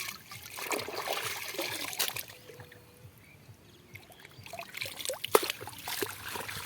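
Water splashing and trickling as a fishing net is hauled up out of shallow wetland water. It comes in two spells with a short lull between them, and there is a sharp splash near the end.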